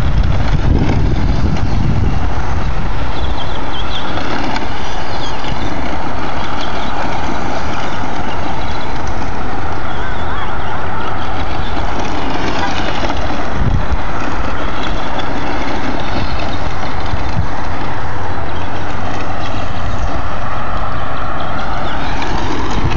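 Radio-controlled short-course truck's motor whining up and down with the throttle as it drives over gravel, under loud, steady wind rumble on the microphone.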